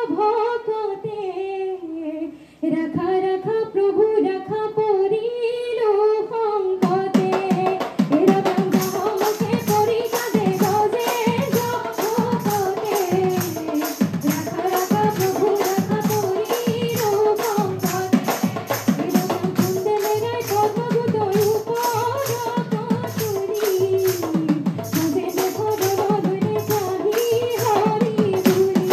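A group of women singing a dihanam, an Assamese devotional song, together. At first the voices are alone; about seven seconds in, fast rhythmic hand-clapping joins the singing and keeps time with it.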